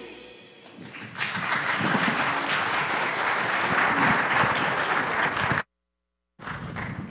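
The last note of a children's choir fades out, then an audience applauds from about a second in. The applause cuts off suddenly, comes back briefly, and cuts off again near the end.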